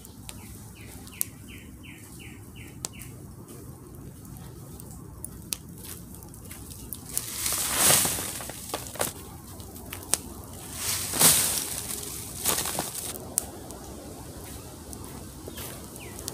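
Dry leaves being kicked and tossed onto a tarp-covered shelter, rustling and crunching in several loud spells through the second half. Near the start a quick run of about eight high chirps.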